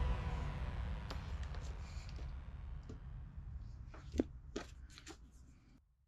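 Fading tail of background music with a low hum dying away, while a few light clicks and taps of small hobby tools and model parts sound, the sharpest about four seconds in; the sound cuts off abruptly just before the end.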